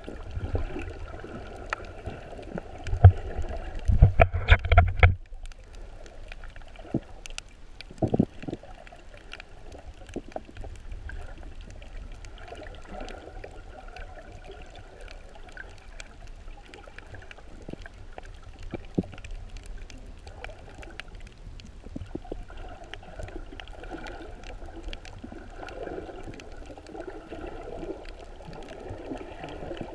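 Muffled underwater sound heard through a camera's waterproof housing: a steady dull swish of water with faint scattered crackling. A cluster of loud thumps and rumbles comes about three seconds in and cuts off suddenly near five seconds, and another loud knock follows around eight seconds.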